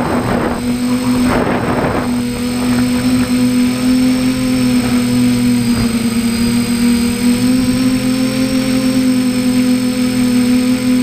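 A camera drone's motors and propellers heard on board, a steady whine that sags slightly in pitch about six seconds in. Two brief rushing noises come in the first two seconds.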